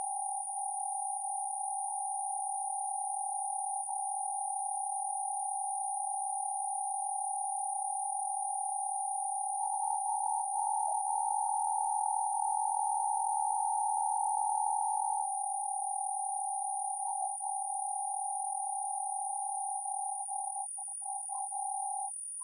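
A steady electronic tone, mid-pitched, held without change of pitch over a constant faint high-pitched whine. It swells a little in the middle, breaks up briefly near the end and then cuts off.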